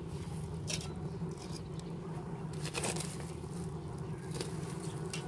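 Wood fire burning in the firebox of a clay-plastered brick stove, with a few scattered crackles over a steady low hum.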